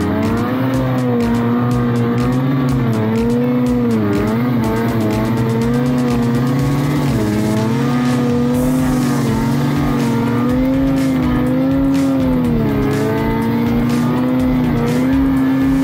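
Ski-Doo Summit 850's two-stroke twin engine running at high revs through deep powder, its note wavering up and down with the throttle and dipping twice, about four and thirteen seconds in.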